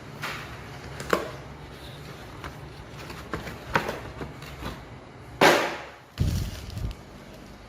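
Unboxing handling noises from robot-vacuum packaging: scattered sharp taps and clicks, a louder noisy burst lasting about half a second some five and a half seconds in, then a few low thumps.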